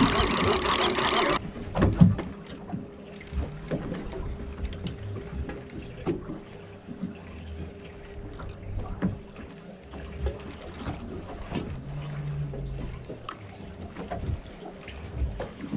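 Wind and sea noise on an offshore fishing boat: a loud rush of wind on the microphone for about the first second and a half, then quieter water and wind with scattered light clicks and knocks of a spinning rod and reel being handled.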